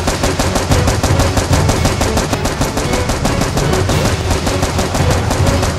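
Rapid automatic-gunfire sound effect dubbed over toy blaster shooting: an unbroken stream of shots, about ten a second.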